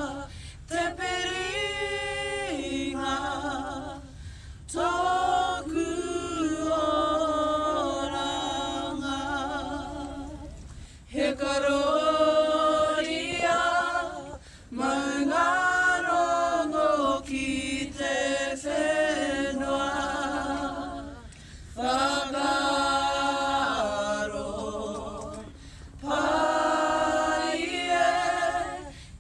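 Group of young people singing a Māori waiata unaccompanied, in phrases separated by short pauses.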